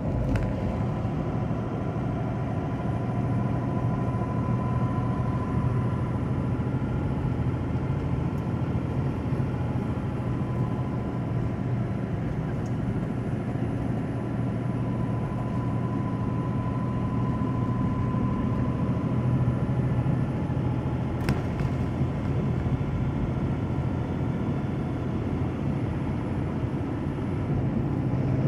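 Steady engine drone and road noise inside a semi truck's cab while cruising, with a low hum and a faint steady whine.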